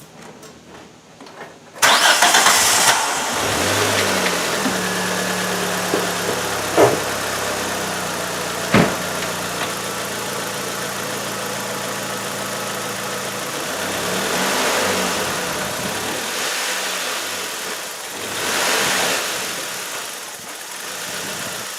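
Car engine starting about two seconds in, then idling, with two sharp knocks and two brief rises as the engine is loaded to make it twist on its mounts. This is a test for a clunk suspected to come from a worn motor mount.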